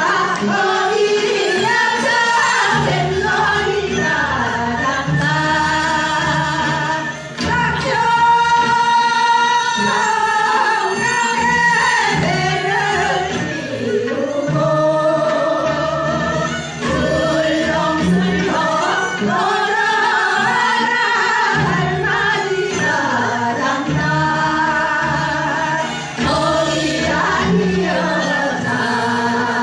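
Music with singing: a sung melody over steady low accompaniment.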